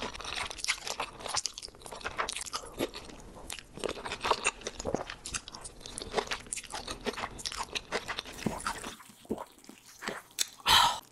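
Close-miked eating sounds: slurping and chewing a mouthful of spicy cheese-and-corn fire noodles, a dense run of wet smacks and clicks. It goes quieter for a moment about eight and a half seconds in, then a short loud burst comes near the end.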